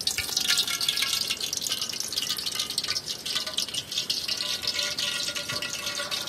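Hot coconut oil sizzling and crackling steadily in a cooking pan.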